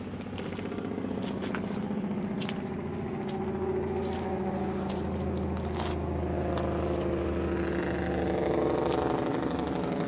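A heavy vehicle's engine running steadily at low speed, growing a little louder toward the end, with a few light clicks over it. It cuts in and out abruptly.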